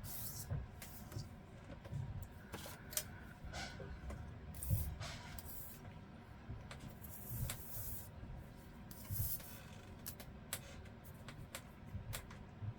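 Paper and craft materials being handled: scattered light clicks and taps with short rustles, irregular throughout.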